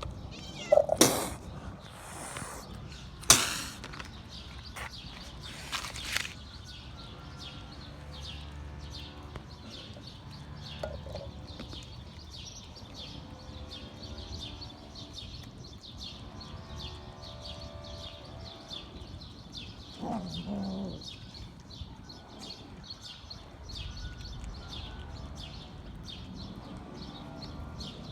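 Stray cat meowing briefly about two-thirds of the way through, after two loud sharp knocks in the first few seconds and a faint fast ticking throughout.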